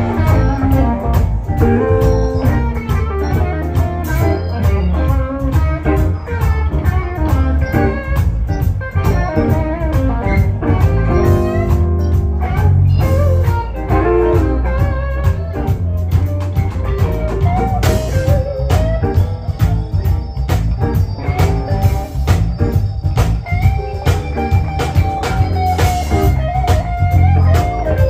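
Electric blues band playing live: electric guitar lines over bass and drums, with a long held note in the last few seconds.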